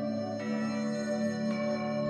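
Slow, calm instrumental background music of held notes, with new notes coming in about half a second in and again near the end.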